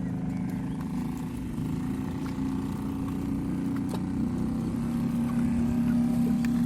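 A boat engine running steadily with a low hum, getting louder toward the end.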